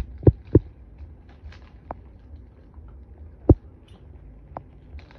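A few short, sharp clicks and knocks at irregular intervals: three close together at the start, a louder one about three and a half seconds in, and fainter ones between.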